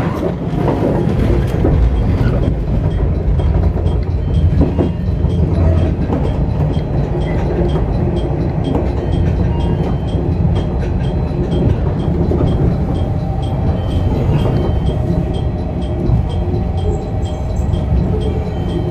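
415 series electric multiple unit running, heard from inside its leading cab: a steady rumble of wheels on the rails, with a few sharp knocks as the wheels cross points near the start and about five seconds in.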